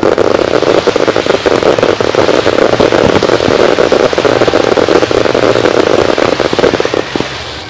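Fireworks barrage: a loud, dense crackling of many small bursts packed close together. It starts suddenly and dies away near the end.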